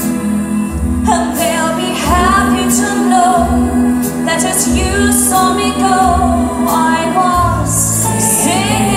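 Women singing into microphones over a backing track with a steady bass beat, about one pulse a second.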